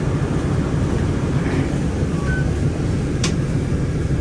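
Steady low rumble of a city bus in motion, heard from inside the cabin, with a sharp click about three seconds in.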